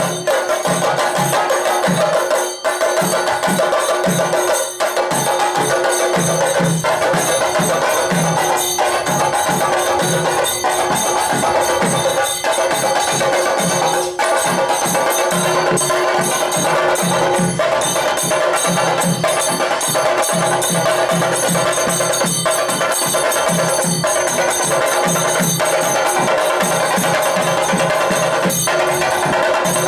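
A group of Kerala chenda drums, struck with sticks in a loud, steady, driving rhythm, with bright metallic ringing from hand cymbals over them: the percussion that accompanies a Thidambu Nritham temple dance.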